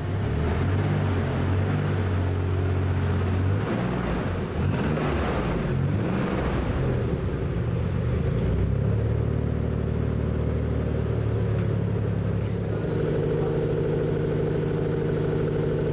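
Nissan 300ZX's twin-turbo 3.0-litre V6 running after being started following long storage, its note shifting a few times. It runs evenly, with no unusual noises: a sign the engine is turning over correctly.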